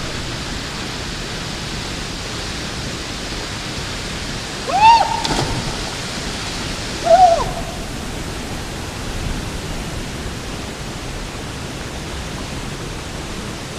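Steady rush of a waterfall pouring into its plunge pool. About five seconds in, a person yells once, loud and rising then falling, with a splash into the pool, and a second short shout follows about two seconds later.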